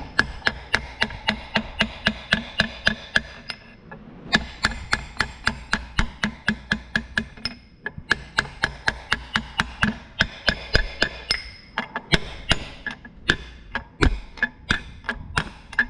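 Hammer blows driving a bearing race into a Vermeer hay cutter's drive pod, about three or four sharp taps a second with a few short pauses, each strike ringing of metal on metal.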